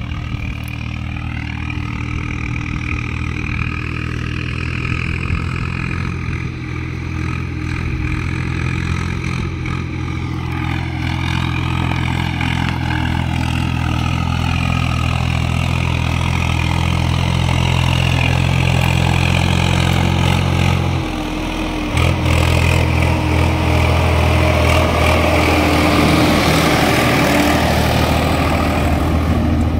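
Swaraj 744 XT tractor's diesel engine running steadily while pulling a fully loaded trolley, growing louder as it comes close. About two-thirds of the way through, the engine note breaks off for about a second and then returns, with a growing hiss over it to the end.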